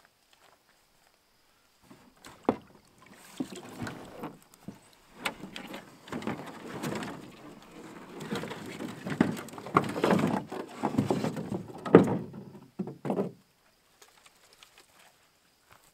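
A bundle of dry sticks and branches being gathered out of a canoe: brushwood rustling, with sticks clattering and knocking against the canoe's hull. It starts about two seconds in and stops a couple of seconds before the end, and the sharpest knock comes near the end.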